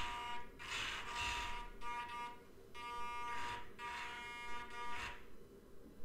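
Electric drive of a WPL E1 1/16 RC tracked vehicle whining at low throttle as it pivots in place. The buzzing tone starts and stops about five times as the throttle is feathered, and ends about a second before the end.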